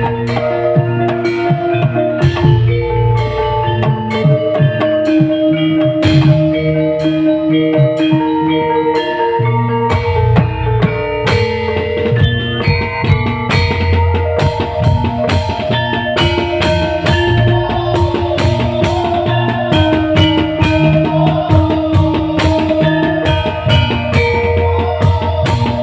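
Live band music with a dense drum beat and held melodic notes, including pitched mallet-like percussion.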